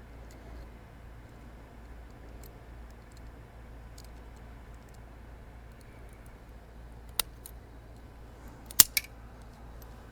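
A few sharp clicks during the wiring work, like cutters or snips closing: one about seven seconds in and a louder double click near the end. Faint small ticks and a steady low hum run under them.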